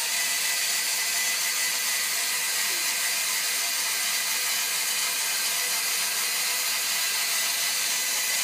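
Lego NXT motor and its gearbox whirring steadily as they drive the toy boat's propeller in the water.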